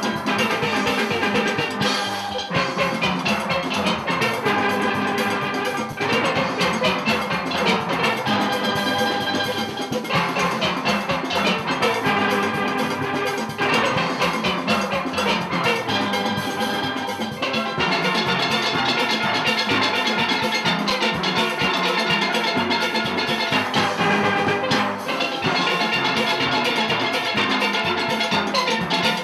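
Steel orchestra playing a calypso on steelpans, many pans sounding together in rolled and struck notes over a drum section.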